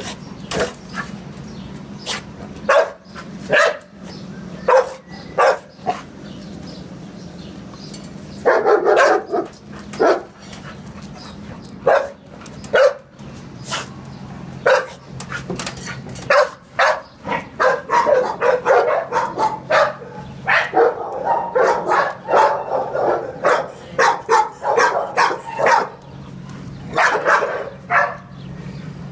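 Dogs in kennel runs barking on and off: single barks spaced apart, a short burst about nine seconds in, then a long stretch of rapid barking from about seventeen to twenty-six seconds in. A steady low hum runs underneath.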